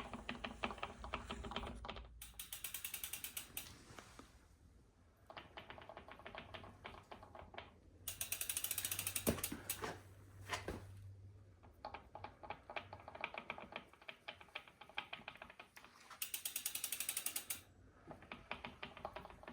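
Bafang M620 mid-drive e-bike motor ratcheting as the cranks are pedalled backwards: rapid clicking in spells of a second or two, with short pauses between. The owner of the brand-new bike is unsure whether this is normal, since a Bafang BBS02 does not make this noise.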